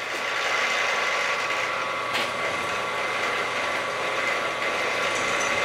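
Milling machine spindle running as a twist drill bores through 0.09-inch S30V steel knife stock: a steady whirring hiss with a high whine held at one pitch.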